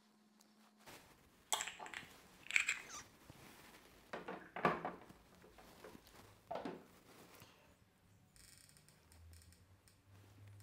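Faint knocks, clinks and scrapes of glass jars and their lids being handled and set down, about five separate sounds over several seconds. From about eight seconds in, a low steady hum.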